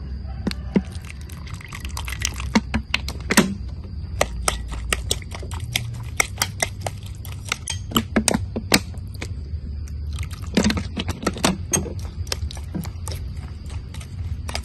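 Metal spoon stirring and scraping a wet, grainy mixture in a ceramic bowl, with many sharp, irregular clinks of the spoon against the bowl.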